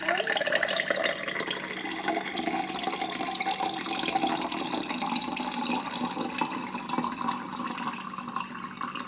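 Homemade lemon water being poured into a drinking glass in a steady, continuous stream.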